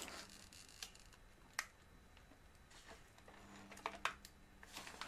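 Faint handling of packaging: a few sparse, sharp clicks and taps with light rustling, spread over several seconds.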